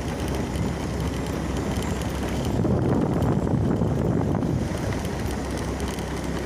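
Steady low rumbling noise with wind on the microphone, swelling for about two seconds in the middle.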